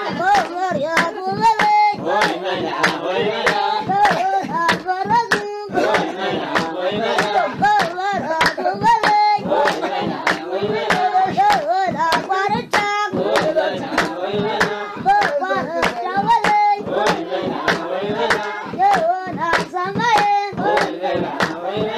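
Group of voices singing a song with steady hand clapping, about three claps a second.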